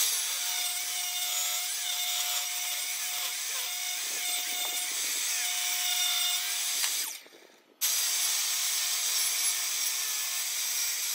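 Ryobi table saw running and ripping a 2x6 board lengthwise, with a steady whine under the cutting noise. This is a second pass to true the edges. The sound breaks off for a moment about seven seconds in, then the saw is heard cutting again.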